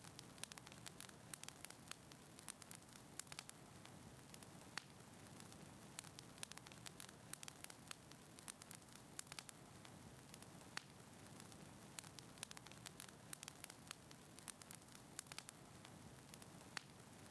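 Fireplace fire crackling faintly, with irregular small snaps and pops over a low steady hiss.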